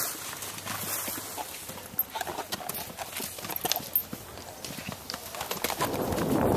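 Horses' hooves thudding and clattering irregularly as hunt horses land over a wooden coop jump and canter on. Near the end, wind rushing on the microphone grows louder.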